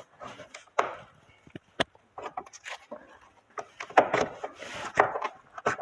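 Plastic door trim piece being worked off its snap clips: a series of sharp plastic clicks and knocks with bouts of scraping and rubbing, busiest about four seconds in.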